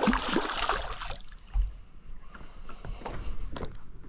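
Hooked largemouth bass thrashing and splashing at the water's surface beside the boat for about the first second, then quieter with a few small clicks and two sharp clicks near the end.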